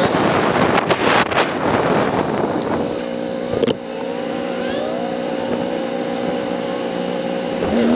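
Motorcycle engine heard from the rider's seat, first with wind noise as the bike slows, then a sharp click about halfway. The engine then idles steadily while the bike waits at a red light, and revs up near the end as it pulls away.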